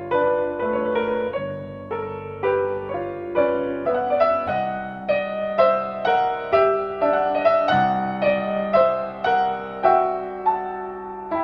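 Background solo piano music, a steady stream of notes and chords struck about twice a second.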